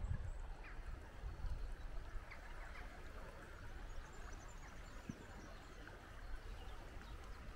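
Shallow river running steadily over stones, with a few faint high bird chirps scattered over it and a fluctuating low rumble underneath.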